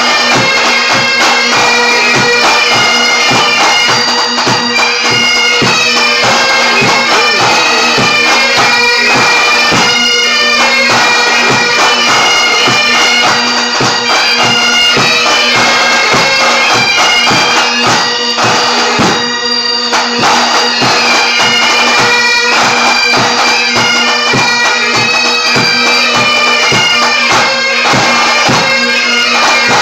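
Pipe band playing: bagpipes sounding a melody over steady drones, with snare drums and a bass drum keeping a steady beat.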